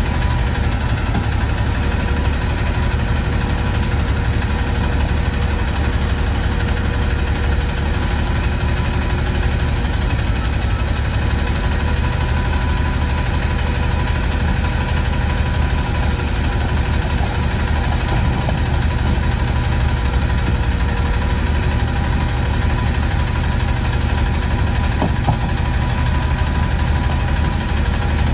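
Peterbilt front-loader garbage truck's engine idling steadily, with a low, even throb.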